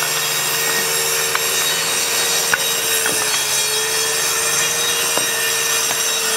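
Handheld electric circular saw running under load as it trims the ends of softwood boards flush. A steady whine with a slight dip in pitch about halfway, over a broad hiss of cutting, and a few light knocks.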